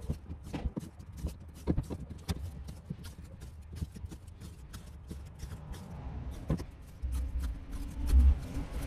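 Irregular light clicks and knocks from a cord-wrapped chainsaw handlebar and a tape roll being handled against a truck tailgate during rewrapping. A low rumble comes in near the end and peaks just before it.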